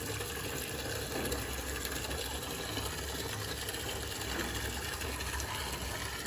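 A small motor whirring steadily with a low hum.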